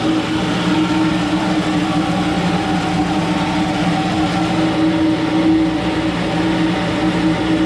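Grinder running steadily with a whine as it cleans up the exhaust ports of an LS2 cylinder head, cutting off near the end.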